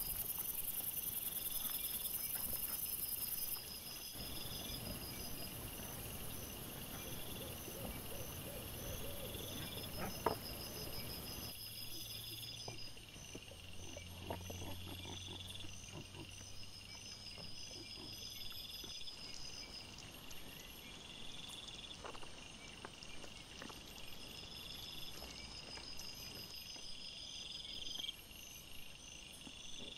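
Crickets chirping in regular, evenly repeating trains of high-pitched pulses over a faint hiss. Scattered soft rustles and ticks come through underneath, with one sharp tick about a third of the way in.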